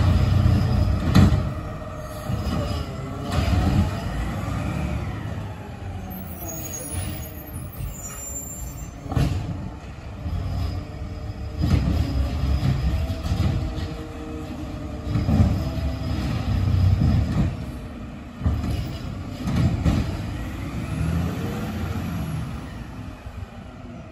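Diesel garbage truck driving away, its engine rising and falling in repeated surges, with a few short sharp air-brake hisses; the sound fades near the end as the truck gets farther away.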